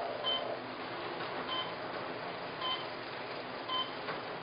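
Short electronic beep repeating about once a second, each a brief high tone with a lower one under it, over a steady background hum.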